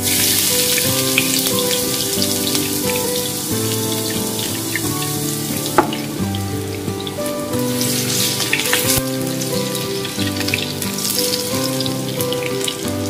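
Minced garlic sizzling in hot cooking oil in a wok, the hiss starting abruptly as it hits the oil and staying steady. Background music plays underneath.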